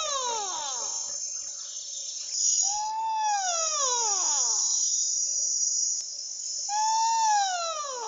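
A wild animal's call: one drawn-out note that slides down in pitch, with overtones, repeated about every four seconds, over a steady high-pitched chorus of insects such as crickets.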